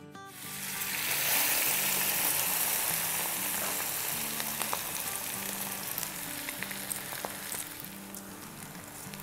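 Wet parboiled rice poured into hot ghee with cardamom pods, sizzling loudly. The sizzle swells within the first second and then slowly dies down as the oil cools under the rice.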